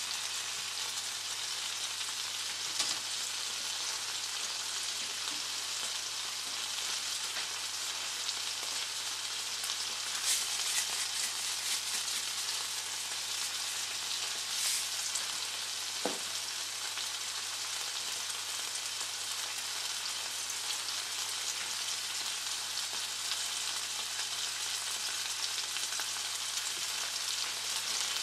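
Chopped tomatoes sizzling steadily in hot oil in a nonstick frying pan, with a few brief louder crackles and a single sharp click about two-thirds of the way through.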